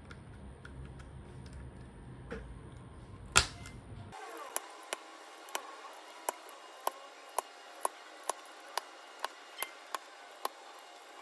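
Keys on a mechanical keyboard fitted with Outemu orange switches pressed one at a time, a separate clack about every half second through the second half. Before that there is a low hum with faint clicks and one loud sharp click.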